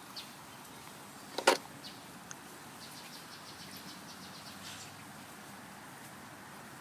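Steady outdoor background noise with one sharp knock about a second and a half in, then a quick run of short, high chirps from a large flock of birds.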